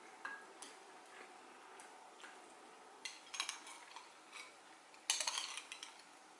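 Kitchenware being handled: scattered light clinks, with two louder clusters of clattering about three and five seconds in.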